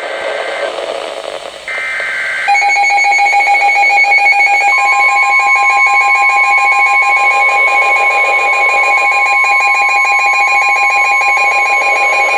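Emergency alert signalling: two short warbling bursts of SAME digital header data, then a loud alert attention tone, a rapidly pulsing tone joined about two seconds later by a steady higher beep, heralding a new severe thunderstorm warning.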